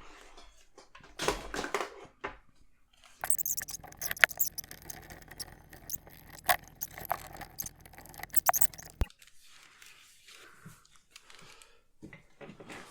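Clicks and light metallic rattles of hands working on a Rock-5-ITX single-board computer in its PC case to take it out. In the middle stretch a steady low hum runs under the clicks, then cuts off suddenly.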